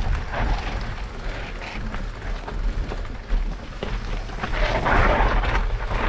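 Electric mountain bike riding a rough trail: wind rumble on the microphone with rattles and knocks from the bike and tyres over rough ground, and a louder hiss about five seconds in.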